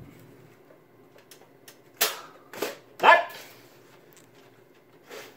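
A dog barking: three short barks in quick succession about two to three seconds in.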